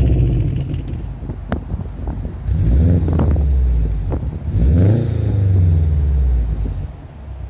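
Subaru Impreza WRX STi turbocharged flat-four engine heard through its exhaust. The revs fall away, a sharp crack sounds about a second and a half in, then the engine revs up and drops back twice, about three and five seconds in, and settles lower near the end.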